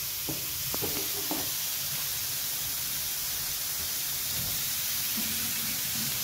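Raw chicken breast strips sizzling on a hot electric griddle plate, a steady hiss.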